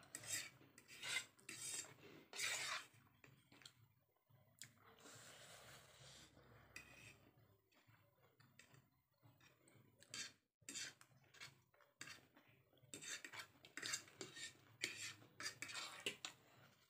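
Cutlery clinking and scraping on plates as chowmein noodles are eaten: quiet, scattered short clicks and scrapes.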